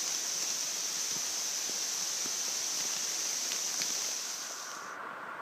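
Heavy rain falling on dense forest leaves: a steady hiss with scattered taps of single drops. It drops off sharply near the end.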